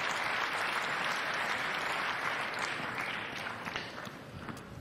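Tennis audience applauding between points, the clapping dying away over the last second or so.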